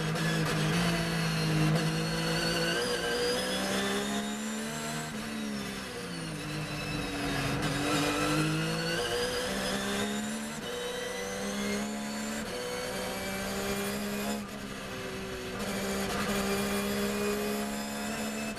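Onboard sound of a Porsche 911 GT3 R race car's flat-six engine at racing speed. The engine note falls and climbs again through a slower section, then holds with short breaks at gear changes as the car accelerates hard.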